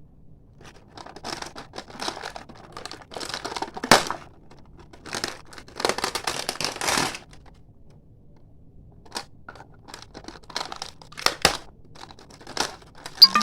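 Plastic packaging crinkling and tearing as a slime pack is unboxed, in several rustling bursts over the first seven seconds with one sharp snap near the middle, then scattered short clicks and crackles.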